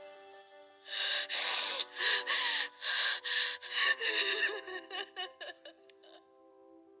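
A person's rapid, gasping breaths, about a dozen in a row, loud at first and growing shorter and fainter until they stop about six seconds in, over sustained, held music notes.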